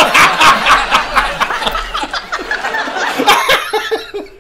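Several people laughing hard at once: a studio audience and panel laughing together with a man laughing close to the microphone, easing off near the end.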